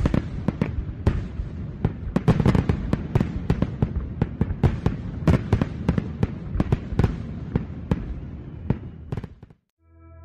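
Fireworks going off: a dense, fast run of bangs and crackles that starts suddenly and cuts off near the end.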